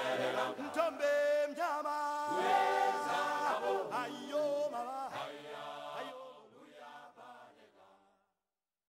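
Background music of chant-like singing voices with long held notes, fading out over the last few seconds and ending about eight seconds in.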